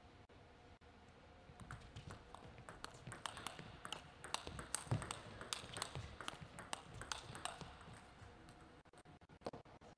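Table tennis rally: the plastic ball clicks in quick succession off the rackets and the table, starting about a second and a half in and stopping around eight seconds.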